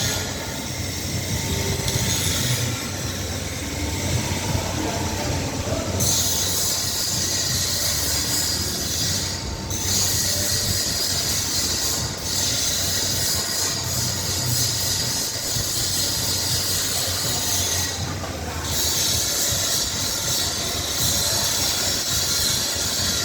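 Continuous metalworking machine noise: a low hum under a harsh, screechy hiss. The high hiss cuts out briefly several times and starts again.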